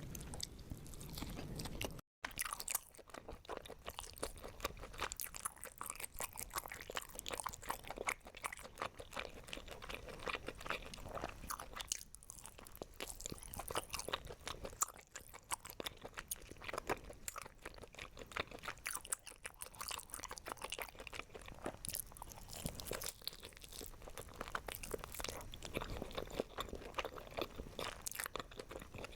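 Close-miked eating: a person biting and chewing crunchy food, a dense, irregular run of crisp crunches. The sound cuts out for an instant about two seconds in, then carries on.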